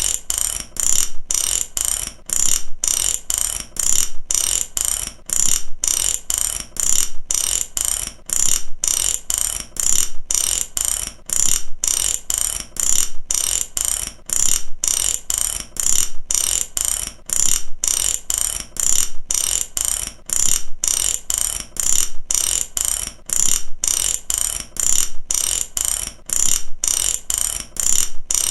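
Mechanic's ratchet wrench being worked back and forth, its pawl clicking rapidly over the gear teeth. The clicks come in short repeated bursts, a little more than one burst a second.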